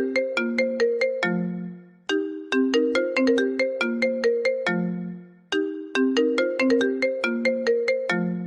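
iPhone ringtone looping: a phrase of quick, bright plucked-sounding notes ending on a longer low note, starting over about every three and a half seconds.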